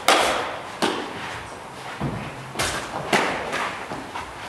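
Thumps and slaps from two fighters sparring with training knives, their lunging footwork and strikes landing. About half a dozen sharp hits, the loudest right at the start.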